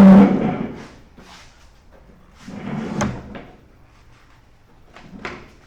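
Steel mower deck clanging and scraping as it is wrestled out from under a riding mower: a loud metallic clang that rings and dies away over about a second, a rougher scraping clatter around the middle, and a sharp knock near the end.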